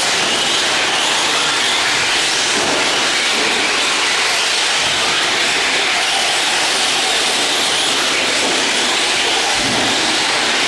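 Radio-controlled racing trucks running on the track: a steady, loud hiss of motors and tyres with no clear engine tone.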